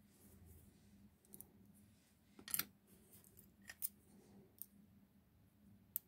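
Lock-picking tools clicking and tapping against a Ruko 600 lock cylinder clamped in a vise as a pick is taken up and set into the keyway. About six sharp metallic clicks, the loudest about two and a half seconds in.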